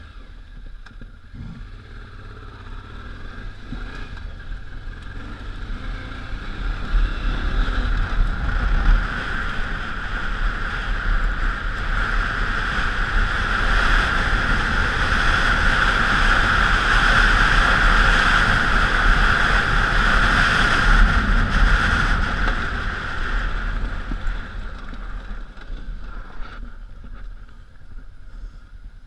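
Honda Africa Twin's 750 cc V-twin engine running under way on a trail, mixed with wind rush on the helmet or bike camera. The rush grows louder as speed builds in the middle, then eases off near the end.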